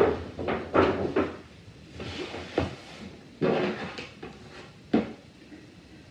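A stiff cardboard gift box and paper shopping bag being handled, in several short rustles and knocks as they are moved and the box's ribbon is untied.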